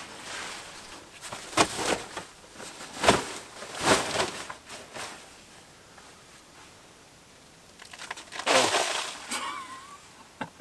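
Rustle and swish of a nylon groundsheet and bivy bag being shaken out and spread on the ground, in several separate swishes with a quieter stretch between.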